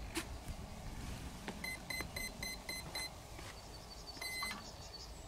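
A quick run of about seven short electronic beeps, roughly five a second, from a piezo-type beeper in the RC gear. Near the end come a run of fainter, higher beeps and one longer beep, over a low steady background hum.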